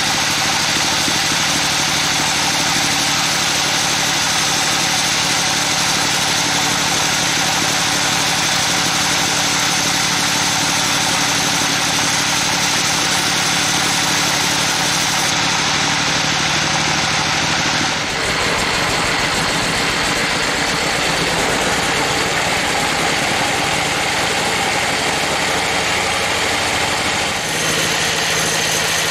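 Sawmill band saw running steadily as its blade rips lengthwise through a trembesi (rain tree) log, with a constant machine drone under the hiss of the cut. The sound changes abruptly about 18 seconds in.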